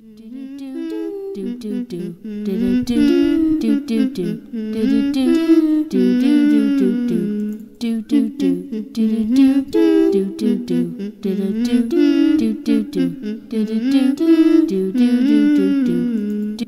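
A person humming a tune with no accompaniment, the melody moving up and down in short notes and phrases.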